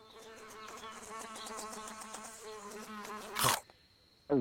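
Cartoon sound effect of a little fairy's wings buzzing in flight, steady for about three and a half seconds. It ends in a short loud rush, and a quick sliding sound follows right at the end.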